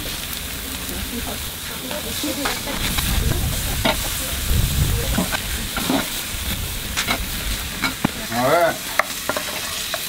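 Burger patties sizzling over hot charcoal on a cast-iron grill grate, with sharp clicks and scrapes of a metal tool against the grate as they are moved. A short wavering tone sounds once near the end.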